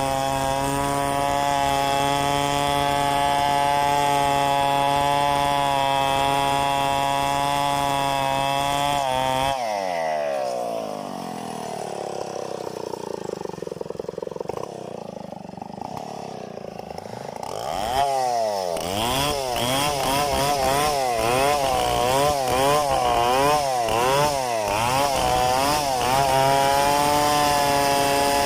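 Large two-stroke chainsaw ripping lengthwise through a log in a freehand milling cut, running at a steady high pitch. About ten seconds in, the engine speed drops and it runs lower and quieter with slow swings in pitch. Near eighteen seconds the pitch starts rising and falling rapidly, over and over, before it settles back to a steady high note near the end.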